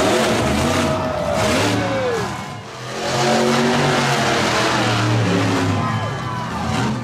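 Monster truck engine revving hard, its pitch rising and falling as the throttle is worked. It eases off about two and a half seconds in, then revs up again and holds.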